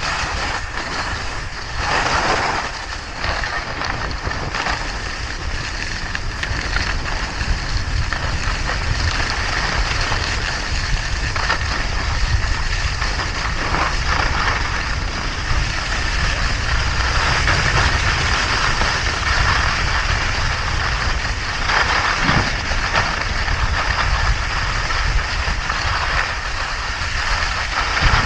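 Skis hissing and scraping over packed snow during a downhill run, with heavy wind rumble on the microphone. The scraping swells and fades several times.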